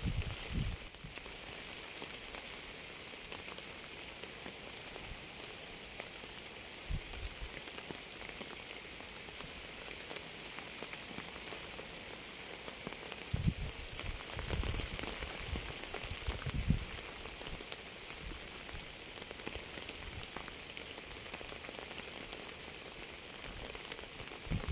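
Steady rain falling on a surface, an even fine hiss with scattered drop ticks. A few short low thuds come through, clustered around the middle.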